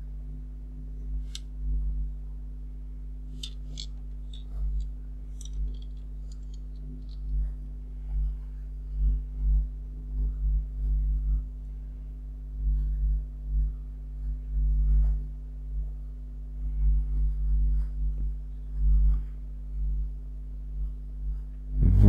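Steady low electrical hum with a few fixed tones, swelling now and then in the low end, with faint scattered clicks.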